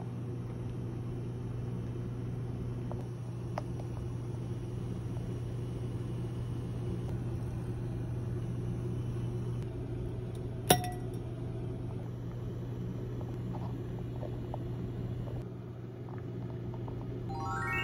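Steady low hum and rumble from the stovetop while a pan of water boils. About eleven seconds in, a metal ladle clinks once against the pan with a short ring. Just before the end comes a quick rising run of chime notes.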